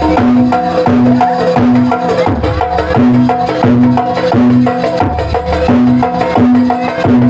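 Live jaranan music from a gamelan-style ensemble: pitched percussion repeats a short phrase over and over against a steady drum and woodblock-like beat.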